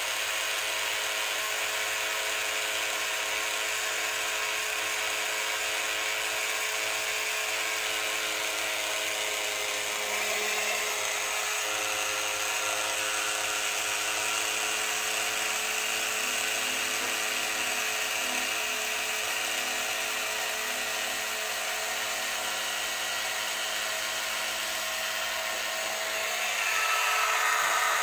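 Small battery-powered electric motor driving the flapping tail of a 3D-printed toy paddle boat, running with a steady buzzing whine as the boat vibrates. It gets louder near the end as the boat is picked up by hand. The motor spins too fast for a useful flip-flop rate, which the builder thinks a low-geared motor would fix.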